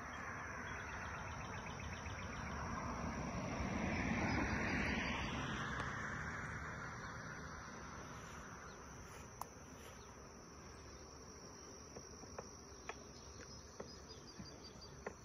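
Honey bees buzzing around an open hive, the buzz swelling and bending in pitch about four seconds in as a bee passes close. A few faint clicks in the second half.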